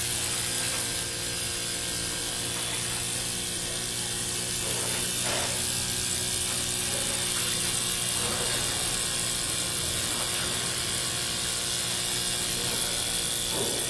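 Homemade steam engine driving a small electricity generator, running steadily with an even whir and a constant hiss.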